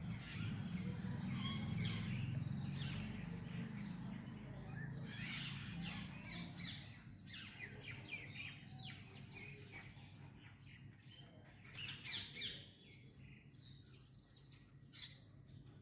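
Birds chirping and calling in short, quick notes again and again, over a low steady hum that fades away by the middle.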